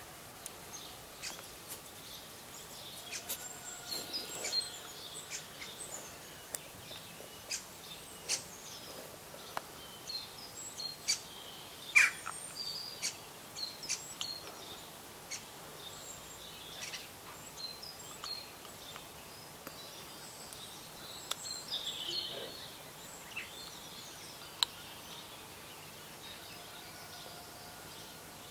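Small songbirds chirping and calling on and off over a steady outdoor background hiss, short calls scattered throughout, with one sharper, louder call a little before halfway.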